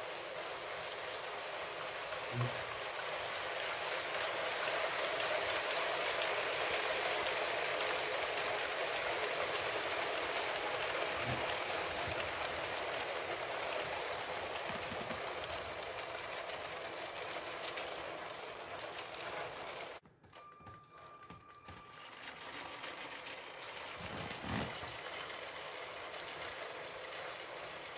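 Long Lego 60197 passenger train running on plastic Lego track: a steady rolling rattle of many plastic wheels with the electric train motors whirring, swelling as the train passes close, with a few soft knocks. The sound drops out for about two seconds about two-thirds of the way through, then resumes.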